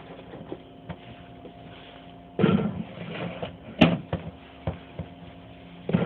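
Groceries being handled and put into a mini fridge: scattered knocks and clicks with brief rustles, the loudest a sharp click a little past halfway, over a faint steady hum.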